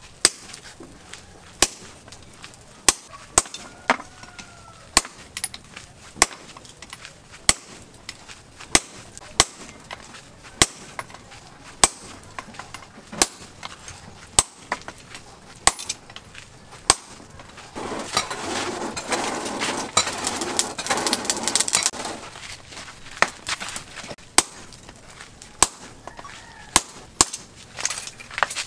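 Hammer blows on a glowing-hot steel bar held in tongs on a post anvil, one sharp strike about every second and a half. A few seconds of louder rushing noise come after the middle, with the blows pausing.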